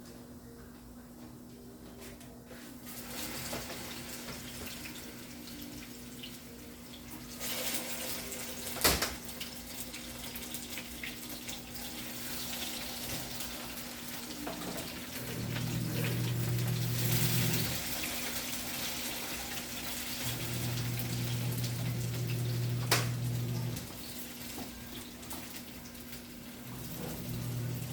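Running water splashing, growing stronger after the first few seconds, with two sharp knocks and a low hum that comes and goes in the second half.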